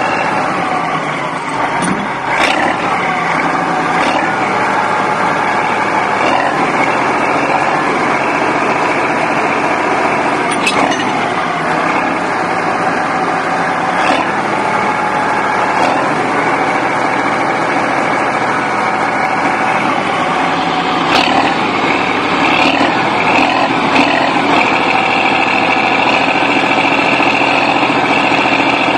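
Bulldozer's diesel engine running steadily under load, with a few short sharp knocks scattered through it.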